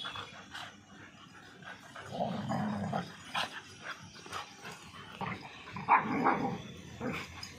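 Two Labrador retrievers growling and barking while they wrestle. The loudest outburst comes about six seconds in.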